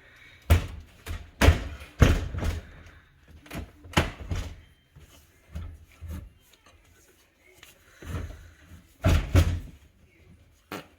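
A series of sharp knocks and thumps, with rubbing and scraping between them, as a built-in dishwasher is worked and knocked loose from under the counter; the loudest is a double thump near the end.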